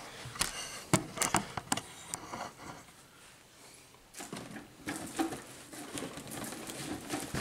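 Cardboard boxes being handled: a few sharp taps and knocks in the first two seconds, then cardboard rubbing and scraping as the product box is worked out of its shipping carton.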